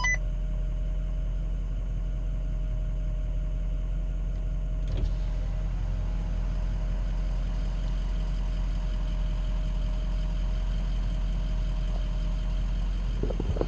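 Ford F-250 pickup's engine idling with a steady low hum, heard from inside the cab. A single short click sounds about five seconds in.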